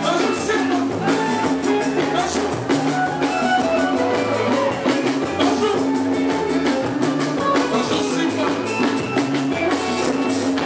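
Dance music with singing over a drum kit and guitar, with a steady beat.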